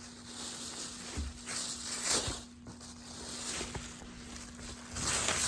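Rustling and handling noise from a leather jacket being turned over and moved about, in two longer swells with a few light clicks, over a faint steady hum.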